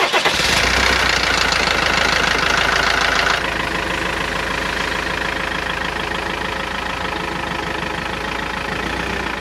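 Iveco motorhome's diesel engine just started and idling. It runs a little louder for about the first three seconds, then settles to a steady idle.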